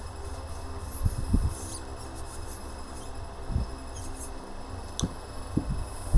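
Quiet background music over a low steady hum, broken by a few dull knocks and one sharp click as motorcycle fork parts are handled on the bench.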